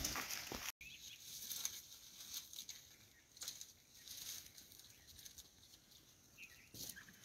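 Faint, scattered rustling and crackling of grass as a greater one-horned rhinoceros walks and grazes through it, after a louder stretch that cuts off abruptly under a second in.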